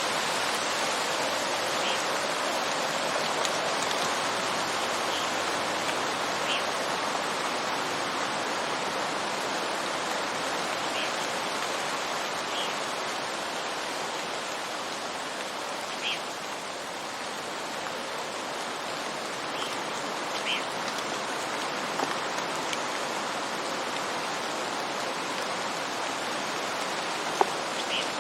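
Heavy rain falling on woodland leaves, a steady hiss, with single drops of water dripping onto wood every second or two and one sharper tick near the end.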